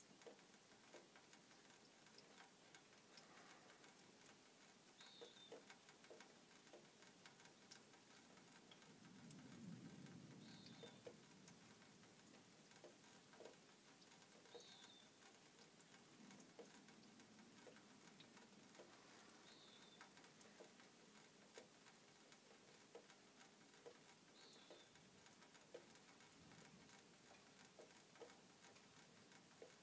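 Near silence: faint scattered ticks and a short high chirp that repeats about every five seconds.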